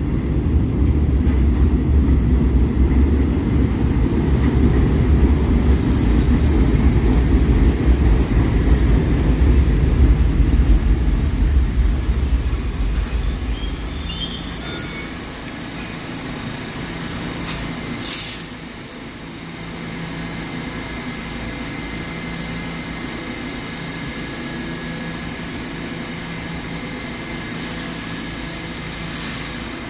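New York City Subway train running on the track with a loud low rumble that eases off after about thirteen seconds. About eighteen seconds in comes a short hiss of air, followed by a steady hum with a faint high whine.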